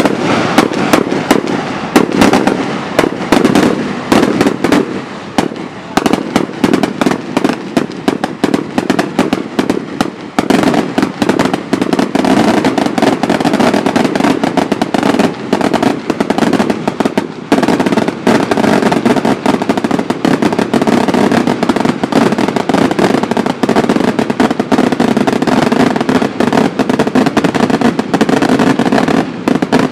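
Firework tubes going off in a rapid, unbroken string of crackling bangs.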